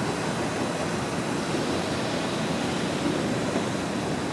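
Steady rain falling, an even hiss of noise with no distinct strikes, with the low rumble of a train moving away underneath.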